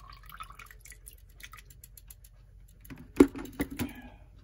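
Clock movement being lifted out of an ultrasonic cleaner's ammonia solution: water drips and trickles in small patters, then three sharp knocks about three seconds in, the first the loudest.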